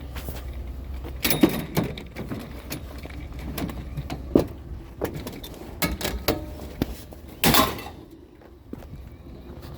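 A run of knocks and clatters from objects being handled, with a louder bang about seven and a half seconds in, like a door being shut. A steady low hum runs underneath and drops away right after the bang.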